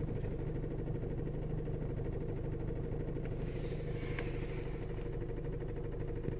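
Volkswagen Golf GTI Mk5's 2.0 TFSI turbocharged four-cylinder engine idling steadily, heard from inside the cabin, with a brief burst of higher-pitched noise and a single tick about halfway through.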